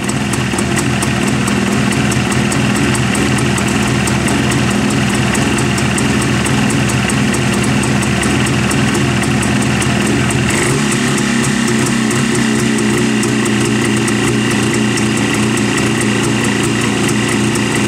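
Jawa 350 two-stroke twin motorcycle engine idling steadily on its stand, the enrichener already off after a cold start, with a slight change in its note about ten seconds in.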